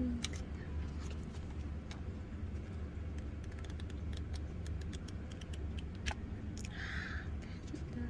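Paper pages of a notebook being turned by hand: scattered light papery clicks and rustles over a steady low hum.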